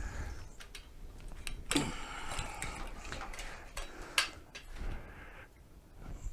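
Irregular light clicks and knocks of hand work on a mobility scooter's tiller mount as a bolt and washers are fitted, with a louder knock about two seconds in and a sharp click about four seconds in.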